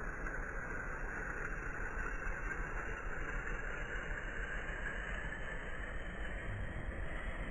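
Boeing 787's jet engines running steadily during its landing, a broad rushing noise with a thin high whine that climbs slowly in pitch.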